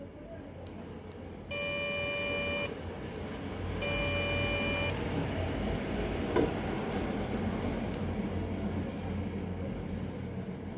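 Two electronic beeps, each about a second long and a second apart, over a steady low hum and hiss, with a single sharp click about six seconds in.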